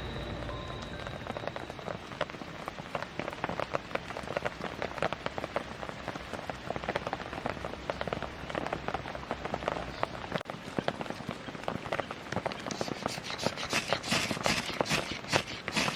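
Wood campfire crackling with irregular sharp pops, louder in the last few seconds.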